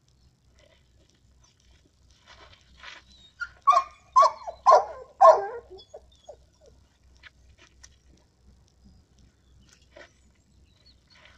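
Boxer dog giving a quick run of four short, loud barks about four seconds in, with faint scuffling around them.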